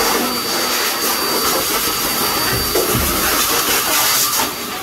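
Vacuum cleaner running steadily, its hose nozzle worked along the floor: a continuous rushing noise with a thin high whine that fades out a little under three seconds in.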